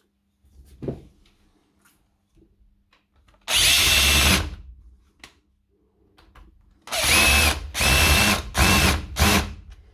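Cordless power screwdriver whirring in bursts as it drives two holding screws into a rotary hammer's housing: one run of about a second, then four short runs near the end. Each run has a whine that rises as the motor spins up and falls as it stops.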